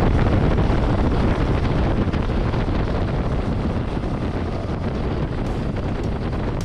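Wind rushing over the microphone of a motorcycle riding at highway speed, with the Honda Transalp 700's V-twin engine and tyre noise underneath.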